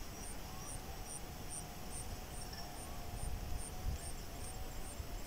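Insects chirping in a field: a high chirp repeats evenly about twice a second, with fainter, irregular chirps beneath it. A faint wavering hum and a low rumble lie under the chirps.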